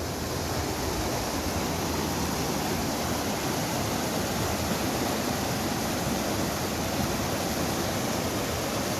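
Rushing mountain river: a small, fast Himalayan stream pouring over boulders in white-water rapids, a steady rush of water.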